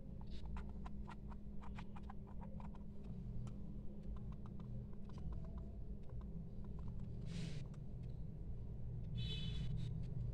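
Small plastic clicks and handling of a black wireless mouse: a quick run of clicks in the first three seconds and a few more around five seconds in, then short rubbing scrapes near the end as it is turned over. A steady low hum lies underneath.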